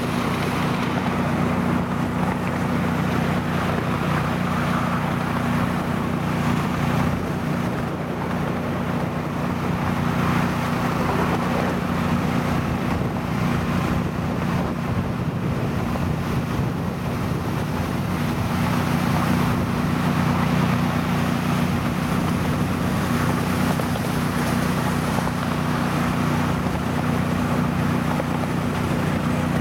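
Miniature railway diesel locomotive running at a steady engine note while hauling the train, heard from the carriage behind it. Wheels roll on the track under a steady rush of wind on the microphone.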